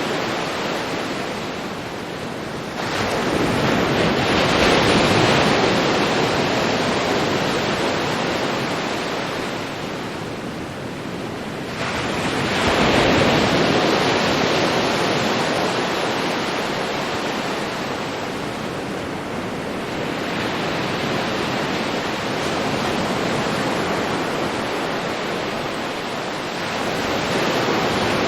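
Ocean waves breaking on a beach: a steady wash of surf that swells as each wave breaks, about four times, some eight or nine seconds apart.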